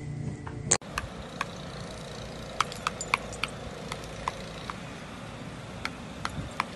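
A loud click about a second in, then a dozen or so short, sharp clicks at irregular intervals over a steady background hiss.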